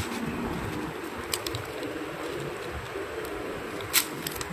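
Paper sandwich wrapper crinkling as a sub is handled: a few short, sharp crinkles, the loudest about four seconds in, over a low steady background.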